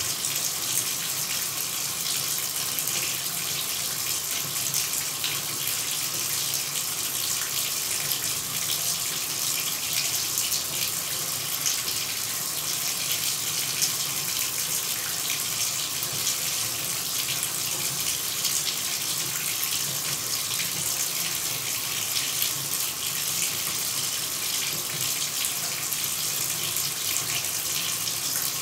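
Shower running: a steady hiss of falling spray splashing, strongest in the high range, with fine splatter and no pauses.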